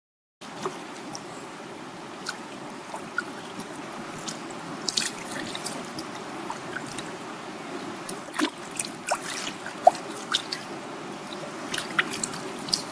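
Floodwater flowing, a steady low rush with many irregular drips, plinks and small splashes on top.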